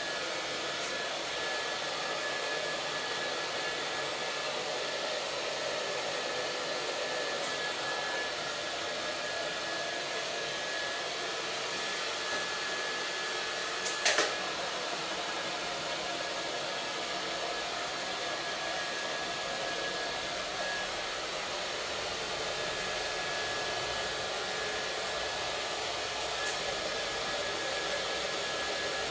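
Handheld hair dryer blowing steadily on a dog's coat, a constant airy rush with a steady high whine. A single short knock about halfway through.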